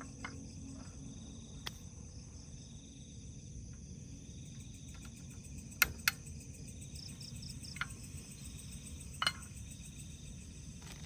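Crickets chirping in a faint, steady pulsing trill, broken by a few sharp clicks, the loudest at the very start and two in quick succession about six seconds in.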